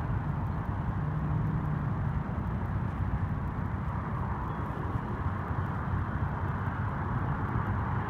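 Road traffic: cars driving along the street, a steady hum of engines and tyres with no distinct events.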